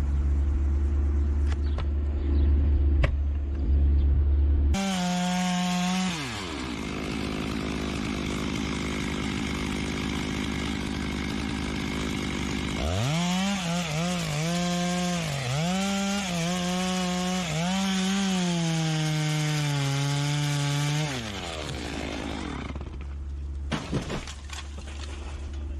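Chainsaw running at high speed and cutting wood, its engine note dipping and recovering several times as the chain bites, then falling off near the end. A loud low hum fills the first few seconds before the saw winds up.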